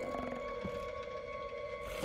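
Suspense film score: an ominous held drone of steady tones, with a faint soft thud less than a second in and a hiss coming in near the end.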